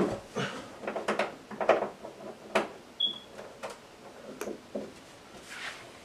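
A run of irregular knocks, clicks and clatters of objects being handled, with a brief high beep about three seconds in.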